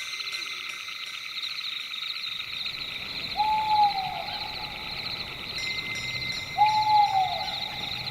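An owl hooting twice, about three seconds apart, each a short falling note, over a steady high-pitched chirring chorus of night insects.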